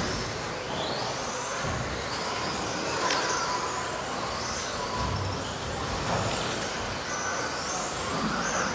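Electric RC race trucks running laps, their motors whining high and rising and falling over and over as they accelerate and brake around the track, over a steady hall-wide hum.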